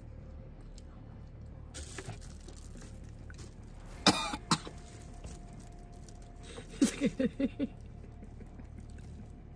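A person gagging and coughing on a mouthful of century egg: two sharp retching coughs about four seconds in, then a quick run of about six short throaty heaves around seven seconds in.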